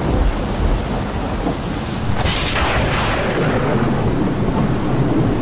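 Thunderstorm: rain hissing over a continuous low rumble of thunder, with a sharp thunderclap a little over two seconds in that dies away over the next second or so.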